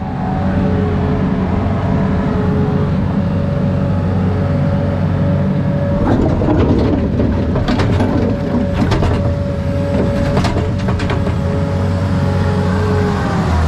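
Diesel engine of a compact earthmoving machine running steadily, with a steady whine over it. Between about six and eleven seconds in come a series of sharp metallic clanks and knocks.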